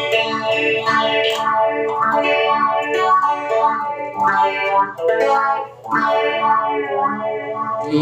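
Clean Ibanez electric guitar played through the phaser mode of a Joyo Vision Dual Modulation pedal with the depth turned up: a steady run of picked notes with the phaser sweep moving through them.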